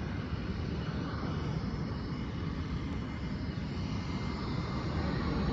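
Steady low rumble of a distant F/A-18 Hornet's twin jet engines on approach to land.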